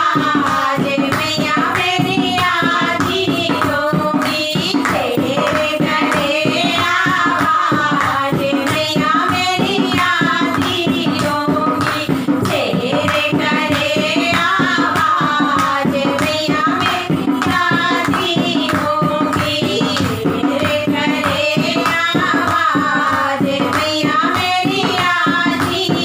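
A group of women singing a Hindi devotional song to the goddess Durga (devi geet bhajan) together, over a steady rhythmic beat of hand claps.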